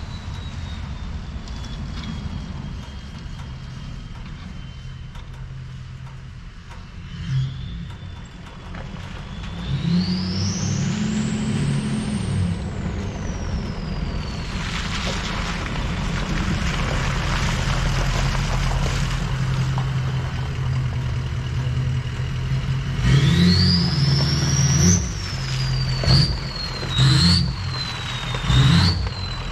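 Ford Super Duty pickup truck's engine running as it drives up a gravel driveway and pulls in, with a high whine that rises and falls with the throttle and tyres crunching over the gravel. Near the end the engine swells several times in short bursts, the whine climbing with each.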